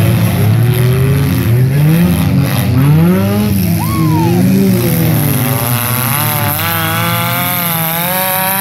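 Demolition derby car engines revving, several at once, their pitch rising and falling. From about two-thirds of the way in, one engine holds at high revs with a slightly wavering pitch.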